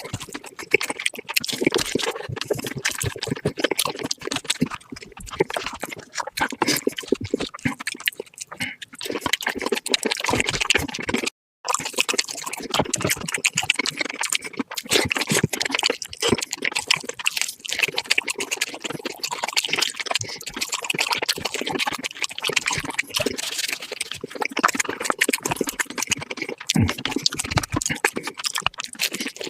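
Close-miked eating sounds sped up to four times speed: rapid, dense crunching, chewing and wet mouth clicks, with a brief break about eleven seconds in.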